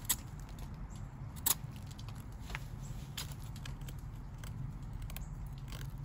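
Ozark Trail bait knife carving wet wood: irregular short scrapes and clicks as the blade bites and shaves, the two sharpest just after the start and about a second and a half in.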